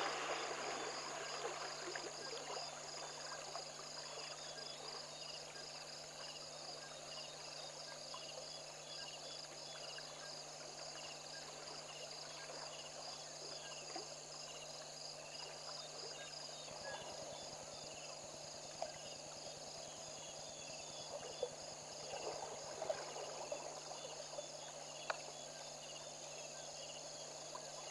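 Night insect chorus: crickets chirping in an evenly repeating pattern over a continuous high trill. A few short sharp clicks sound in the second half, and soft water sounds come near the end.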